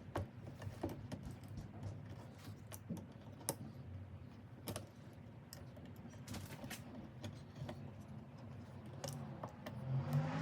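Scattered light clicks and taps at an irregular pace, over a faint low background hum that swells just before the end.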